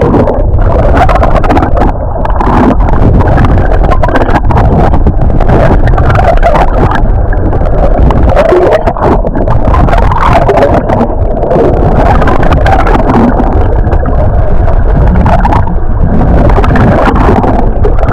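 Loud, steady rumbling noise of a powerboat on the water: engine, hull and water noise with wind buffeting the microphone.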